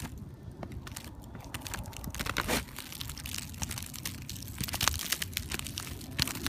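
Footsteps crunching on a thin crust of icy snow over asphalt roof shingles: irregular crunches and small crackles over a low rumble.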